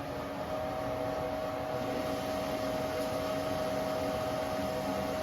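Metal lathe spinning a steel cannon barrel at high RPM while the tool takes a light finishing cut. It runs steadily with a constant whine and no chatter, the work steadied by the tailstock.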